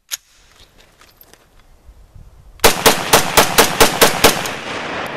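Rifle fired rapidly, about eight shots at roughly four a second starting just past halfway, with the echo trailing off afterwards.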